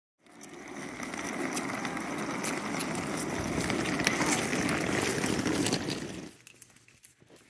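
Steady outdoor background noise with scattered clicks and clinks, cutting off abruptly about six seconds in to a much quieter background with faint ticks.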